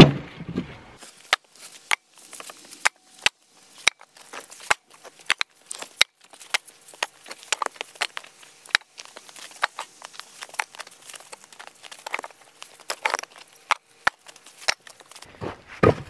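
Split firewood being stacked by hand: logs knocking and clunking against one another in an irregular string of sharp, short knocks.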